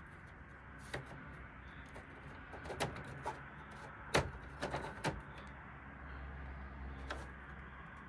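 Scattered sharp plastic clicks and knocks as the front panel of a Panasonic CS-22NFB room air conditioner is lifted open and handled, the loudest about four seconds in, over a low steady hum.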